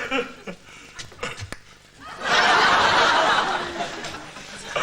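Studio audience laughter, breaking out about two seconds in and dying down near the end, after a few short clicks and scraps of voice.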